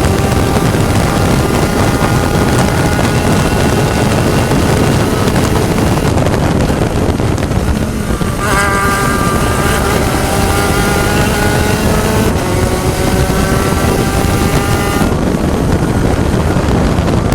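Spec Racer Ford race car engine running hard at speed. Its pitch changes with gear shifts about eight seconds in and again twice more near the end, over a steady rush of wind noise.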